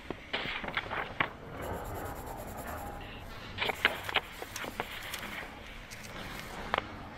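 Pencil scratching on paper close up, with several sharp taps and clicks, a cluster of them a little past halfway and one more near the end.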